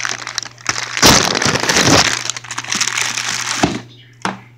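Loud crackling and rustling of something being handled for about three seconds, then a single short knock.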